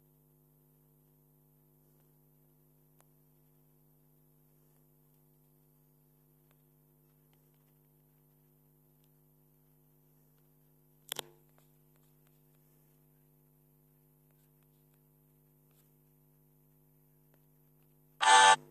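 Faint, steady low electrical hum. A single sharp click comes about eleven seconds in, and a loud half-second burst of sound cuts in just before the end.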